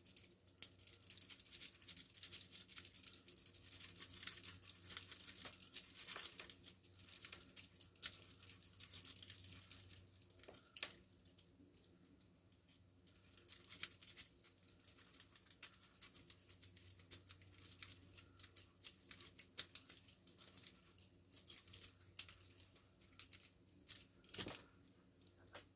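A lock rake and tension wrench scratching and clicking irregularly against the pins of a small brass padlock during raking, with light metal jingling from the handcuffs on the wrists and a few sharper clicks. A steady low hum sits underneath.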